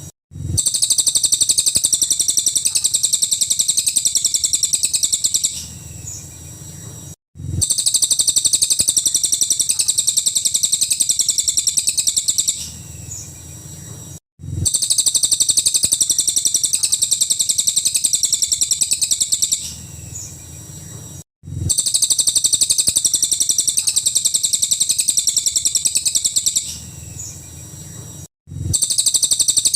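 Cililin song: a fast, high, rattling trill of rapidly repeated notes lasting about five seconds. The same phrase comes back four times, with a softer pause and a brief cut between repeats, as a looped training recording.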